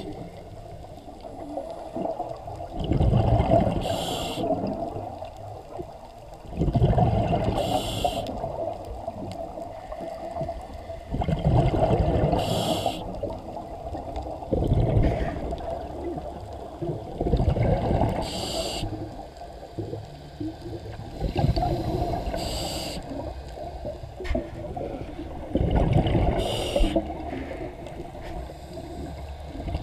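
Scuba breathing through a regulator heard underwater: a bubbling exhale rush and a short hissing inhale, repeating roughly every four seconds.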